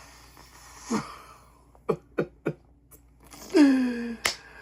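A man's nonverbal vocal reactions, no words: a breathy exhale, a short falling vocal sound, a few small mouth clicks, then a held moan-like 'mmm' about three and a half seconds in, ending with a sharp click.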